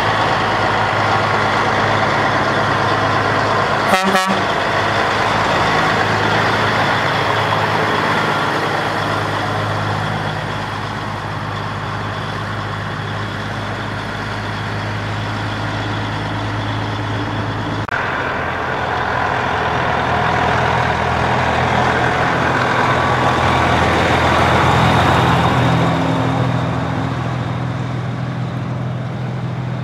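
Heavy diesel truck engines running at low speed past the listener, a steady low engine note. A sharp knock comes about four seconds in; the engine note shifts about two-thirds of the way through and swells near the end.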